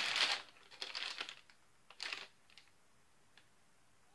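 Plastic candy bag crinkling as it is handled, in a few short bursts over the first two seconds, with a few faint clicks after.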